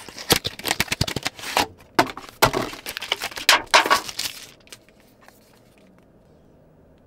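Packaging being opened by hand: a folding knife slitting the seal of a small cardboard box, then cardboard scraping and thin plastic wrap crinkling as an earbud charging case is pulled out, a quick run of sharp clicks and rustles that stops about four and a half seconds in.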